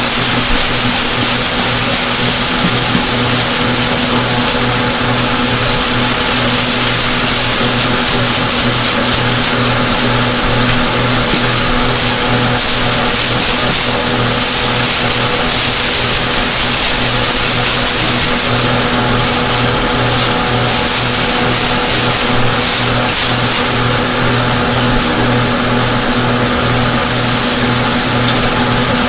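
Chicken drumsticks frying in hot grease in a pan: a loud, steady sizzle, with a steady low hum underneath.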